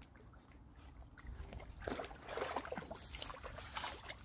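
A dog wading through a shallow stream, its legs sloshing and splashing the water in irregular bursts that begin about two seconds in.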